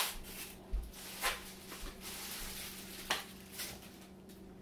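Foil wrapper being peeled off a block of cream cheese, crinkling in a series of short crackles, the loudest about a second in and about three seconds in, with a wooden spoon stirring in a plastic mixing bowl and a faint steady hum underneath.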